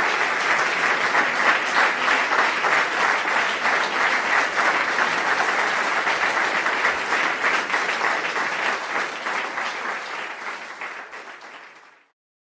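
Audience applauding, a dense steady clapping that fades away over the last two seconds or so.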